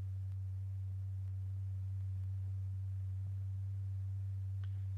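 A steady low pure tone with a faint overtone about an octave above. This is the sine tone that vibrates a stretched paper diaphragm strewn with lycopodium powder in a cymatics experiment.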